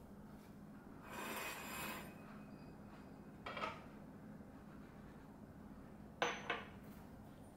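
Paper tea filter rustling as it is handled and opened, then a light glass clink as the glass teapot is set down, and two more quick glass clinks a little after the sixth second.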